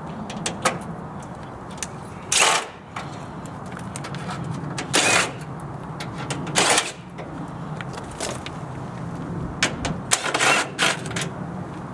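Cordless drill with a Phillips bit running, backing screws out of the sheet-metal panel of a mini-split outdoor unit. A steady low motor hum is broken by a few short, loud metallic rattles and clanks.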